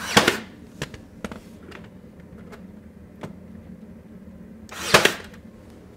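A Ryobi cordless brad nailer fires twice, about five seconds apart, each shot a short whoosh and bang that drives a brad through the shoe moulding. A few faint clicks come between the shots.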